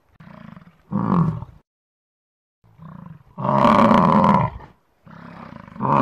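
An animal bellowing over and over: each time a quieter lead-in, then a louder call, three times about two and a half seconds apart, the middle call the longest.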